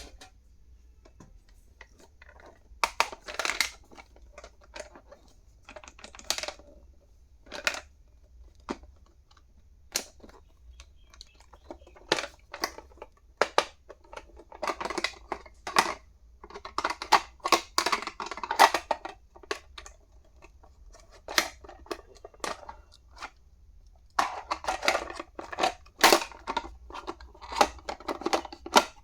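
Stationery items being unpacked and handled on a table: a run of sharp plastic clicks and taps, with stretches of rustling and scraping in between.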